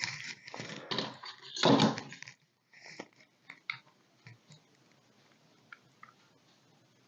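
Handling noises of a machined part and a measuring tool: rustling, scraping and light knocks in the first two seconds, the loudest about two seconds in, then a few faint clicks.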